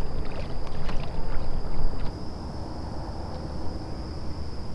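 Kayak gliding across calm marsh water: a low, steady wash of water and wind noise, louder for the first two seconds, under a thin steady high insect drone.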